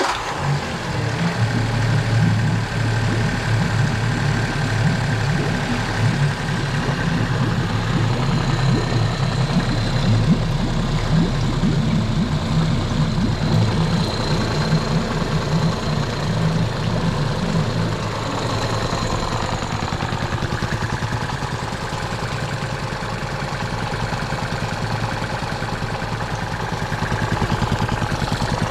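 Evinrude/Suzuki 40 hp four-stroke fuel-injected outboard motor running in a test tank just after starting. It idles steadily, dropping to a slightly quieter, lower idle about 18 seconds in.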